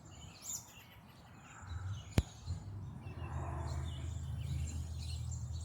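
Songbirds calling faintly in the surrounding trees, thin high chirps here and there. A single sharp click about two seconds in, and a steady low rumble from about a second and a half in.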